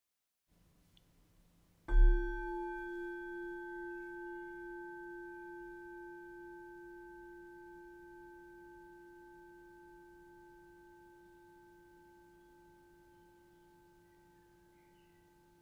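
A singing bowl struck once about two seconds in, ringing on with a slow wobble and fading gradually over the next dozen seconds: the bell that closes the guided meditation.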